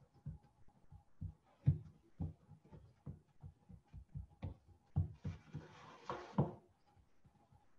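Hands pressing pie dough flat on a floured countertop: a quick series of soft, dull thumps, about three a second, with a brushing rustle about five seconds in.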